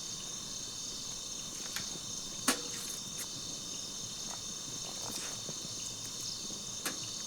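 Steady high chirring chorus of crickets and other insects, with a few sharp clicks breaking through, the loudest about two and a half seconds in.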